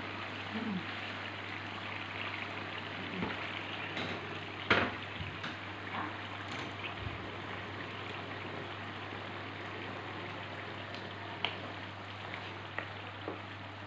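Fish curry simmering and bubbling steadily in a wok over lowered heat, with a steady low hum beneath. A few light knocks, the loudest about five seconds in, come from a wooden spoon against the pan.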